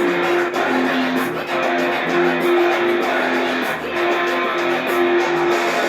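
Instrumental music led by guitar, playing a repeating melodic phrase of held notes.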